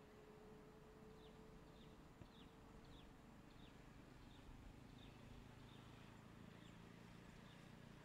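Near silence, with a faint bird repeating a short, high, falling chirp about once or twice a second.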